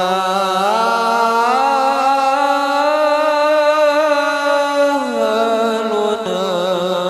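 A male voice chanting a long, held melismatic note of an Arabic sholawat, unaccompanied. The pitch rises within the first second or so, holds, then drops about five seconds in and holds again.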